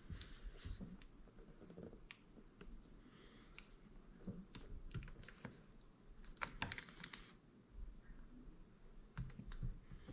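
Faint scattered light clicks and taps of hands handling a replacement laptop LCD panel and plugging its display cable connector back in, with a quick run of clicks about two-thirds of the way through and a few more near the end.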